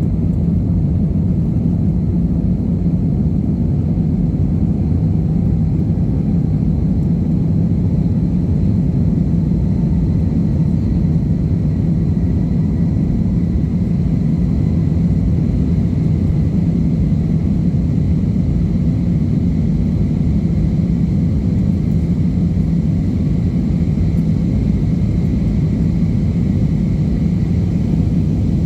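Airliner cabin noise: the jet engines and rushing air make a steady, loud, low drone with a faint high whine above it, unchanging throughout.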